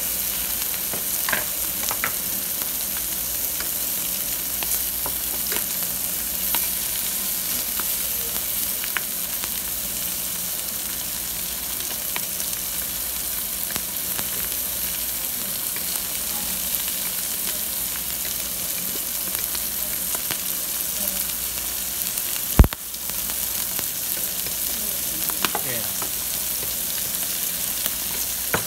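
Slices of pork belly sizzling steadily on a grill plate over charcoal, a constant hiss with scattered light clicks. One sharp knock stands out about three-quarters of the way through.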